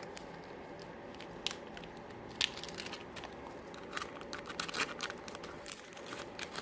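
Small plastic bag of solder tabs being handled and opened: faint crinkling and rustling with scattered sharp clicks.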